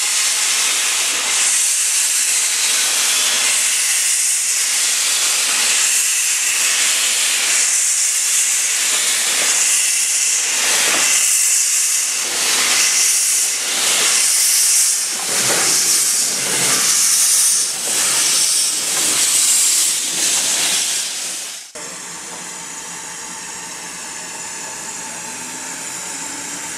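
Steam locomotive hissing loudly as it lets off steam, the hiss pulsing about once a second. About 22 seconds in it cuts suddenly to a quieter, steady hiss.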